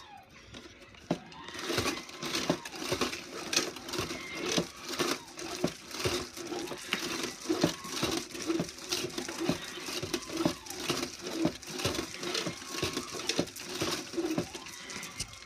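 Strands of a bamboo bead curtain clicking and rattling in a continuous, irregular clatter as they swing and knock against each other.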